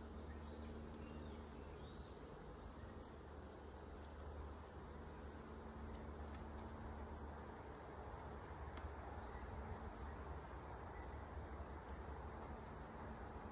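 Faint buzzing of honeybees around an open hive over a low hum, with a short high chirp repeating about once a second.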